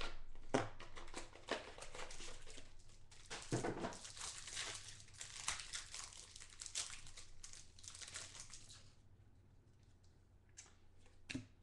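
Clear plastic wrapper of a pack of football trading cards crinkling as it is torn and pulled open, dense and crackly for about nine seconds, then dying away, with a couple of short clicks near the end.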